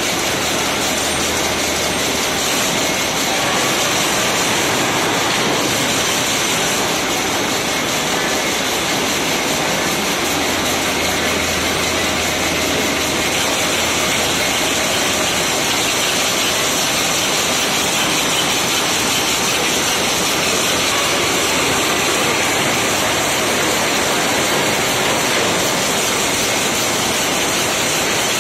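Several rapier looms with electronic jacquard heads running at once in a weaving shed, making a loud, steady mechanical din.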